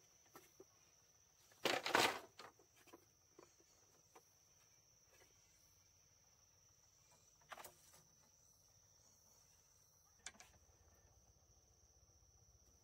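A bundle of split bamboo slats clattering as it is set down about two seconds in, followed by a couple of single light knocks of bamboo on bamboo. Under it a steady high-pitched insect buzz.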